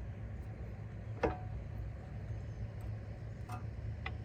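Metal clinking as a brake caliper is worked onto its bracket over a new rotor: one sharp clink about a second in and two lighter ticks near the end, over a steady low hum.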